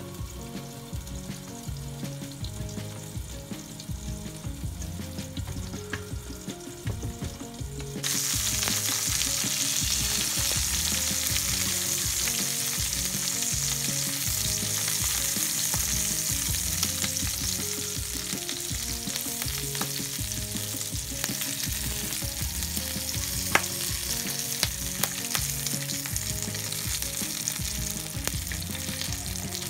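Meat-stuffed green peppers frying in oil in a nonstick pan: a muffled sizzle under the glass lid that turns into a much louder, brighter sizzle about eight seconds in, once the lid is off. Later, a few sharp clicks of metal tongs turning the peppers in the pan.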